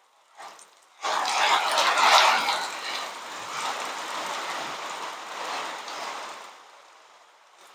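Heavy rain: a rush of rain noise that comes on suddenly about a second in and slowly dies away over the following seconds.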